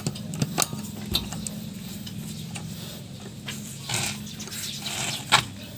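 Scattered metal clinks and taps of a socket wrench working the wheel lug nuts loose, the loudest clink a little past five seconds in, over a steady low hum.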